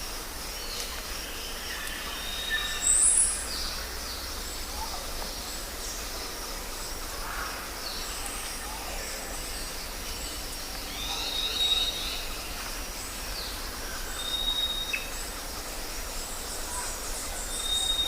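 Jungle ambience: several birds calling over a steady background hiss and low rumble, with short high whistles repeating now and then and a louder high call about three seconds in.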